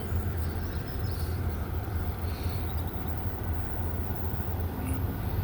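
Steady low rumble of a vehicle driving, engine and road noise.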